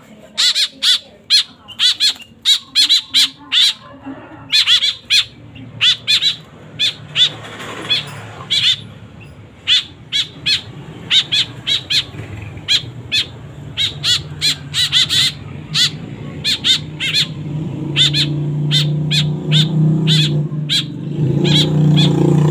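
White-breasted woodswallow chicks calling over and over with short, harsh begging squawks in quick bursts. A low steady hum grows louder in the second half.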